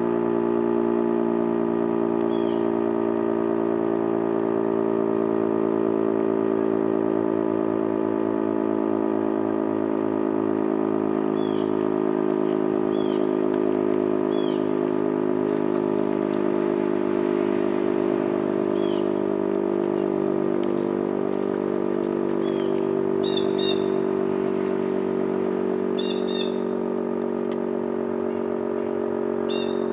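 Federal Signal STH-10 outdoor tornado warning siren sounding a steady droning tone with many overtones, during a test of its attack signal. Short bird chirps are heard several times over it.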